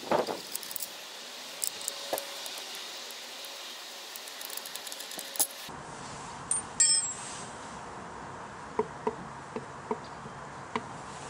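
Small metallic clicks of an Allen key working the 5 mm bolts on a Yamaha RS125's engine side casing, with one brighter ringing clink of metal on metal about seven seconds in.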